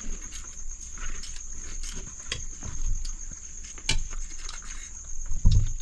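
Spoons clinking and scraping against a serving bowl and metal pots as rice and adobo are dished onto banana leaves, with scattered light knocks, over a steady high-pitched whine. A louder low thump comes about five and a half seconds in.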